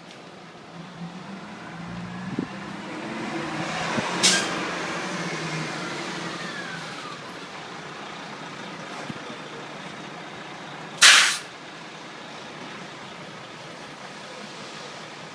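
Heavy fire truck's diesel engine running nearby, growing louder for a few seconds and then easing off, with two short air-brake hisses; the second, about eleven seconds in, is the loudest sound.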